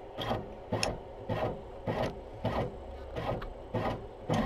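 ScanPro 2200 microfilm scanner auto-scanning a microfiche, its motorized fiche tray stepping from one image to the next. The movement comes in short, regular mechanical pulses, about two a second.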